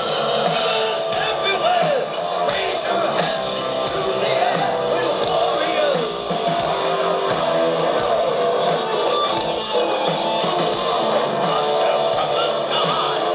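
Live heavy metal band playing, electric guitar with a singer's voice over it, heard from out in the festival crowd.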